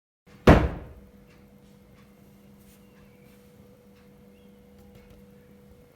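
A single loud thunk about half a second in that dies away within half a second, followed by a faint steady hum with a few small ticks.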